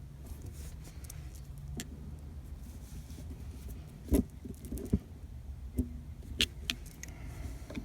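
A few sharp clicks and knocks of hands and tools on the shifter cable bushings as they are pushed off, the loudest about four seconds in, over a low steady hum.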